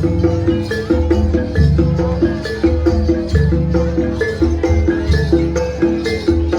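Gamelan-style music: quick struck metallophone notes over a steady drum beat.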